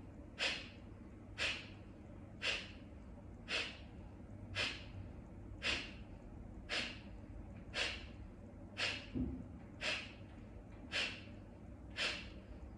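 Kapalabhati breathing: a woman's short, forceful exhales through the nose, driven by sharp contractions of the abdominal muscles, each followed by a quiet passive inhale. The exhales come in an even rhythm of about one a second, twelve in all.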